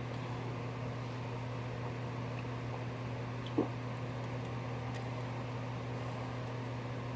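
Steady low background hum, as of a fan or appliance, with one short faint sound about three and a half seconds in.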